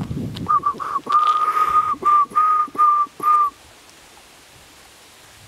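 A person whistling a run of notes all on one steady pitch: three short notes, a long held one, then four more, stopping about three and a half seconds in.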